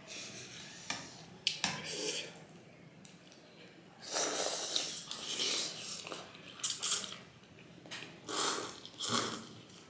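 Noodle soup being slurped and chewed: several loud, hissing slurps of thukpa noodles sucked in from the bowls, the longest about four seconds in and two more near the end, with a few light clicks of cutlery earlier.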